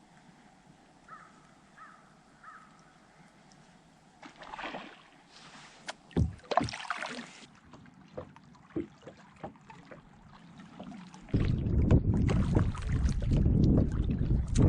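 Fishing kayak on the water: splashing and scattered light knocks against the hull. About three-quarters of the way through, a sudden loud rumble of wind on the microphone sets in and holds.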